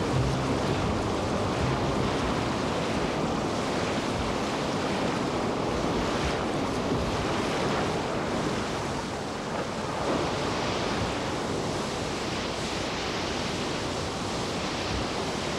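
Whitewater river rapids rushing, a steady loud wash of churning water.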